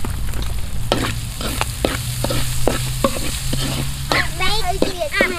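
Cucumbers and pork stir-frying in a pan: a steady sizzle with a spatula scraping and clacking against the pan again and again.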